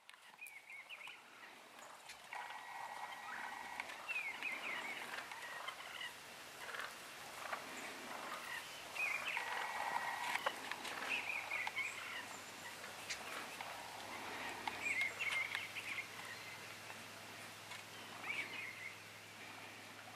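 Wild turkey gobblers gobbling about five times, each gobble a short falling rattle. A steady high trill sounds twice, about two seconds in and again near the middle.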